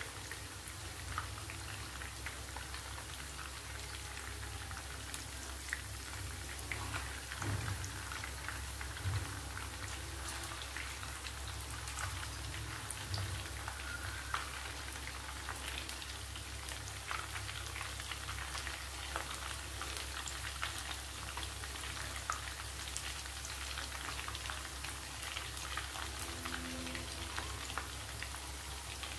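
Hot oil sizzling and crackling steadily around mutton seekh kebabs shallow-frying in a pan, with scattered small pops.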